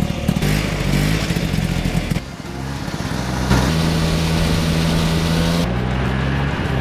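Snowmobile engines running under way. The engine note holds steady in stretches and jumps to a different pitch abruptly a few times.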